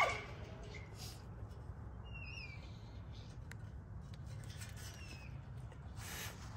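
Low-level outdoor background with faint shuffling, and a couple of short, high squeaks about two seconds in, with a fainter one near five seconds.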